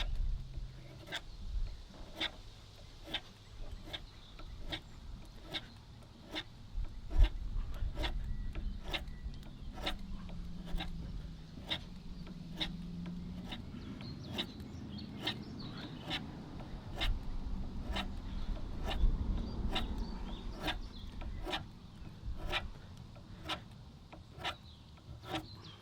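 Hand work on wood, rubbing and rasping, under a sharp tick repeating about twice a second.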